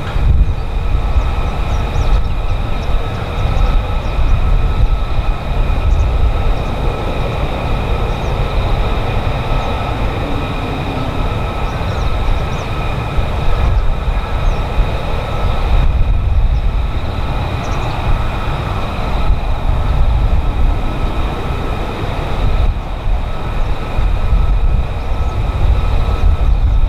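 Jet engine running steadily: a high, even whine over a heavy low rumble that swells and eases.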